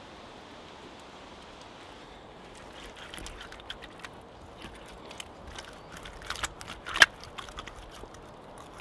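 Hands pressing and working wet clay-and-straw daub into a woven hazel wattle wall: irregular crackles, squelches and scrapes, the sharpest a click about seven seconds in. A steady hiss fills the first couple of seconds.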